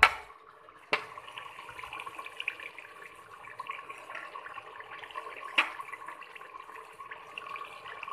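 Oil and spices sizzling steadily in a hot pot, starting about a second in after a sharp click, with another sharp click about five and a half seconds in.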